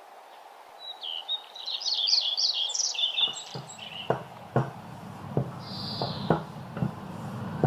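Small birds chirping in a quick run of high notes. From about halfway on, a low rumble with a series of sharp knocks, as dough is rolled out with a rolling pin on the worktop.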